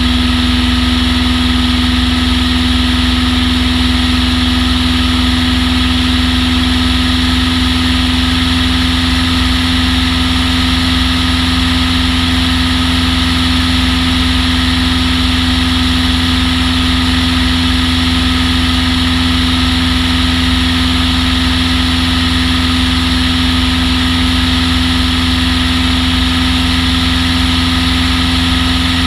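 Long-EZ's rear-mounted pusher engine and propeller running at a steady power setting, a loud, unchanging drone with one strong held tone over a heavy low rumble.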